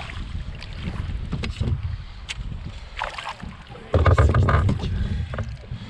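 Wind buffeting the microphone and water moving around a fishing kayak, with scattered knocks from gear on the hull. A louder burst of rumble comes about four seconds in.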